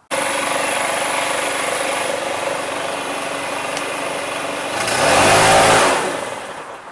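Stihl BR700 backpack blower's two-stroke engine running with a steady rush of air, then revved up once on the throttle about five seconds in, rising in pitch and falling back.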